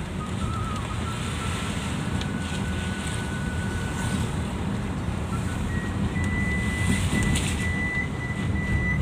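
A car driving on a wet road, heard from inside the cabin: a steady low rumble of engine and tyres. A thin, steady high tone sits over it, stepping higher about six seconds in.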